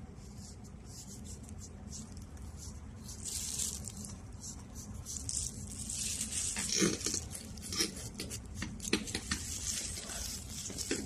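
Small pedicure blade scraping thick, dry callus from a cracked heel in many short, crisp strokes that come quicker and louder from about halfway.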